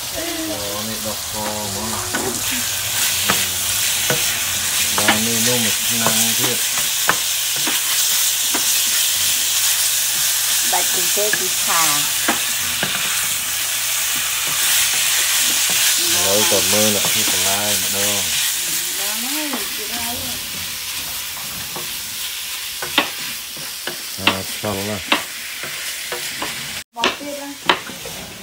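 Sliced meat sizzling as it is stir-fried in a frying pan, stirred and scraped with a wooden spatula, with sharp taps of the spatula on the pan in the later part. The hiss is loudest in the middle and fades toward the end.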